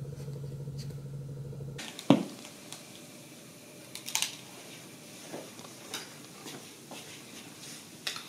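A steady low hum that cuts off about two seconds in, followed at once by a single sharp knock, then a few light clicks and taps spread through the rest.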